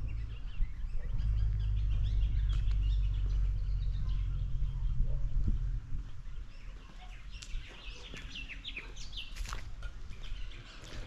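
Birds chirping and calling outdoors, with many short chirps that grow busier in the second half. Under them a low rumble is heard for the first six seconds or so and then drops away.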